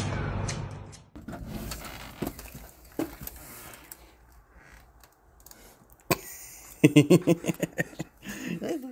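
A few seconds of near-quiet room sound with faint clicks, then a sharp click and, near the end, a loud quick run of short pitched vocal pulses ending in one falling pitched sound.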